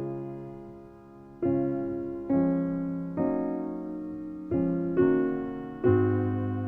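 Slow, gentle piano music: chords struck one after another, roughly once a second, each left to ring and fade.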